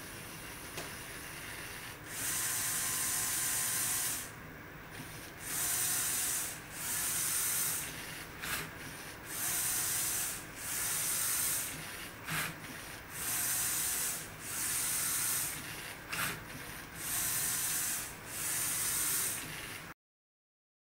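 LEGO SPIKE Prime brush-pen drawing machine running: its motors and plastic gears whirr in a series of rough bursts, each about a second long, about ten of them, as the arm works the pen against the turning paper. The sound cuts off suddenly near the end.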